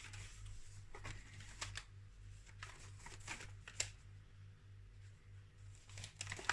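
Paper pages of a mixed media sketchbook being leafed through and handled: quiet rustles with a few sharp flicks.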